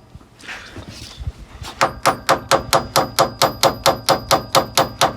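Rapid, evenly spaced hammer taps, about four a second, each with a short metallic ring, on the steel removal tool driving a worn nylon door hinge bushing out of a Jeep Wrangler door hinge; the bushing is starting to loosen. The tapping stops for the first second and a half or so, then resumes.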